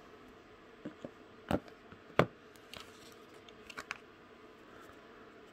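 Handling noises from a phone and its cardboard box being unpacked: a scattered series of short, sharp clicks and light knocks. The two loudest come about a second and a half and two seconds in, then a few fainter clicks near four seconds.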